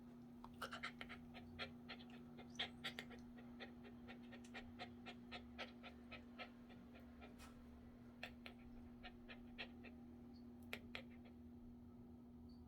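Small dog panting quietly in a rapid, uneven run of short breaths, over a steady low hum.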